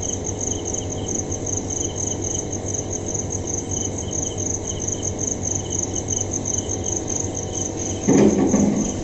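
Crickets chirping in a steady, evenly pulsed high-pitched trill over a low background hum.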